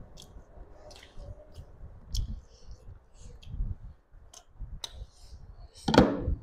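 Close-miked eating-by-hand sounds: fingers working rice and curry on a plate, small clicks and soft squelches, with curry gravy poured from a glass bowl onto the plate partway through. A louder single knock comes near the end.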